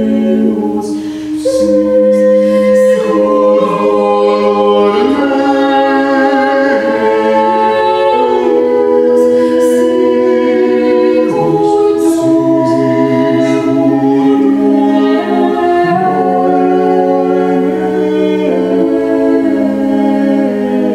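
A small group of voices singing unaccompanied in parts, slow, with long held notes.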